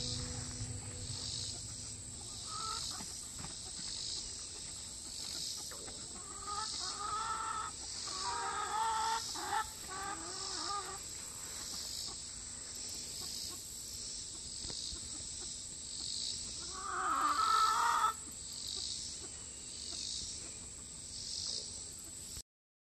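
Chickens clucking and calling in their run: scattered calls, a busier run of clucks in the middle, and the loudest, longer call near the end.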